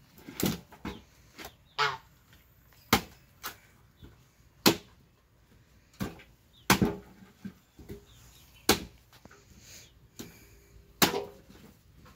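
Machete chopping thick cassava roots into pieces: a string of sharp chops at irregular intervals, one every second or two.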